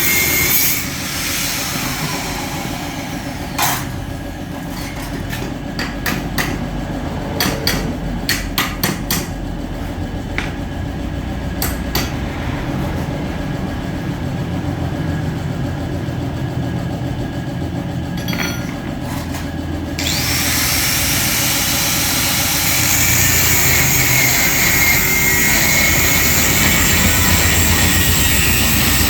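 Metal being knocked and tapped during work on a car exhaust: a run of sharp, irregular knocks over a low steady rumble. About twenty seconds in, a louder steady hiss takes over.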